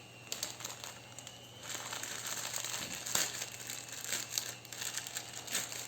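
Crinkly wrapping crackling and rustling as it is handled, with many small crackles, louder from about two seconds in.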